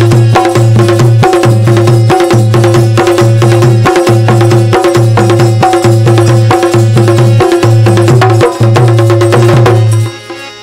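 Instrumental interlude of Bundeli folk devotional music: drums keep up a fast, steady beat over a continuous held drone. The music breaks off briefly near the end.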